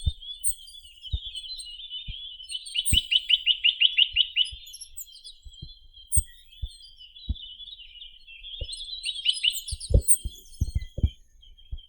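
Chinese nuthatch (Sitta villosa) singing: fast trills of rapidly repeated notes, one about three seconds in and another near ten seconds, with softer notes between. Scattered short low knocks sound underneath.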